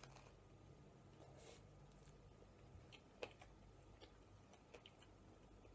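Near silence with soft mouth sounds of someone chewing a bite of pizza: a few faint clicks, one a little sharper about three seconds in.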